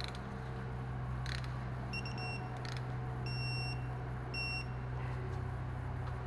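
Three short electronic beeps, about a second and a quarter apart, over a steady low hum. A light click comes about a second in.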